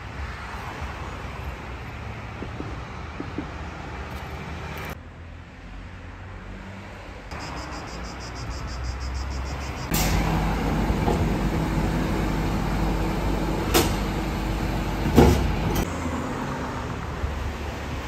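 Road vehicle running, probably a city bus: a steady engine hum with road noise that changes abruptly several times and gets louder about ten seconds in, with two sharp knocks near the end.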